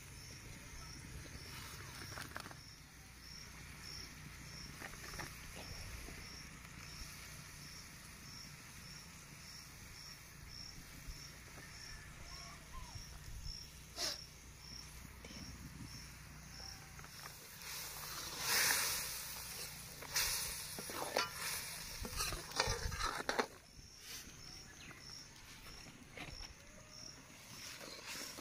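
An insect chirping in a steady, even rhythm of high-pitched pips, about two a second. About two-thirds in come several louder scrapes and clatters of a metal ladle stirring curry in a metal kadai.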